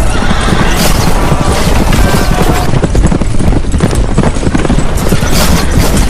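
A group of horses galloping, with a dense, loud clatter of hooves and horses neighing.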